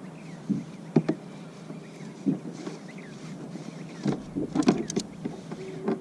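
Irregular knocks and clicks of gear being handled aboard a kayak, over a steady low hum, with a cluster of sharper clicks near the end.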